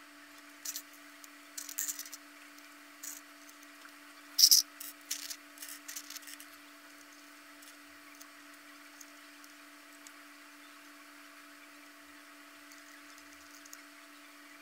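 Plastic twisty-puzzle pieces clicking and tapping as outer parts are fitted: a run of short sharp clicks over the first six seconds, the loudest about four and a half seconds in, over a faint steady hum.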